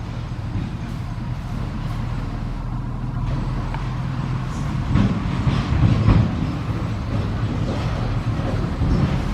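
An engine running: a steady low rumble with a constant hum.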